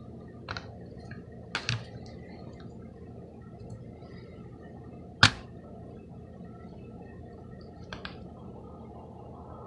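Handling noise: a few short, sharp clicks and taps over a steady low hum, the loudest about five seconds in.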